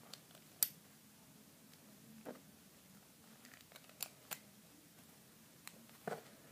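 Parts of a gold armored Ldrago Destroy Beyblade clicking and tapping as they are handled and fitted together: about six short, sharp clicks spread out, the loudest under a second in.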